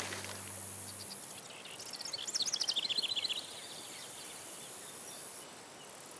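Outdoor ambience of a steady high insect hiss. About two seconds in, a bird sings a quick run of notes that fall in pitch, lasting about a second.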